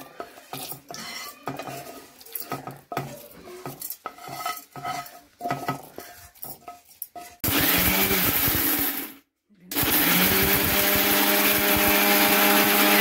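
Dry-roasted chana dal, urad dal, coriander seeds, cumin, sesame seeds and dried red chillies rattle as they are tipped from a pan into a steel mixer-grinder jar. About seven seconds in, an electric mixer grinder starts grinding them dry. It stops briefly, starts again with its motor pitch rising up to speed, then runs steadily.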